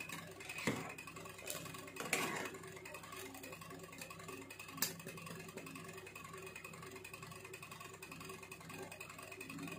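Faint stirring of boiling nettle soup with a metal ladle in a metal pot: a few light knocks of the ladle against the pot, about one, two and five seconds in, over a faint steady background.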